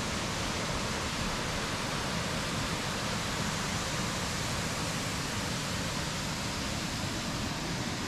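Waterfall rushing: a steady, even roar of falling water.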